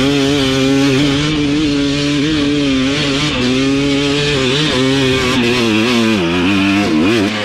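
Dirt bike engine running hard at high revs on a hill climb, its pitch fairly steady. Near the end it swings quickly up and down as the throttle is worked, then drops away.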